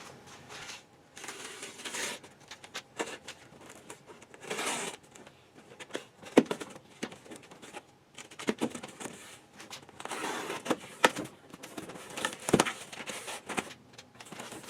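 A cardboard shipping box being opened by hand: packing tape tearing and paper packing crinkling, with irregular rustles and sharp clicks and knocks.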